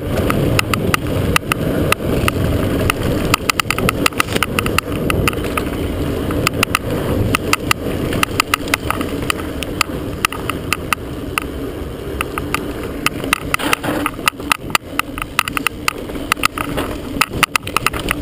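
Mountain bike descending fast on a dirt single-track trail: a steady rumble of wind and tyres, with rapid, irregular clicks and knocks from the chest-mounted camera banging on its mount. The knocks grow denser in the last few seconds.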